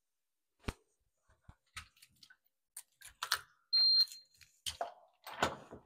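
Scattered clicks and knocks of handling at an apartment door, with a single short high electronic beep about four seconds in from the door's electronic keypad lock.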